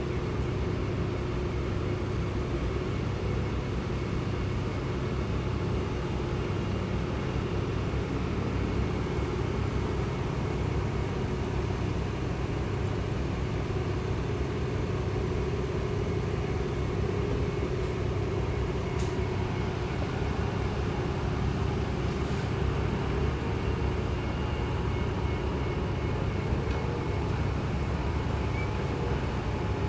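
Steady low mechanical rumble of running machinery, with faint steady hums over it and no change throughout; a faint tick about 19 seconds in.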